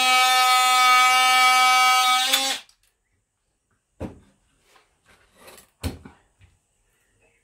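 Cordless oscillating multi-tool running with a steady buzzing tone as its blade cuts into the plastic of a car radiator tank, cutting off abruptly about two and a half seconds in. A few short knocks and handling sounds follow as the tool is put down.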